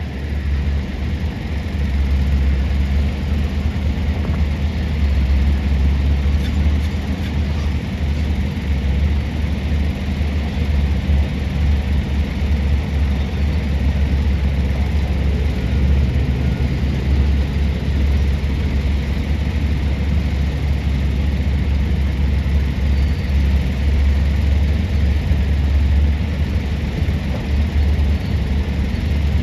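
Heavy diesel mining machinery running steadily, a deep continuous engine drone with no breaks.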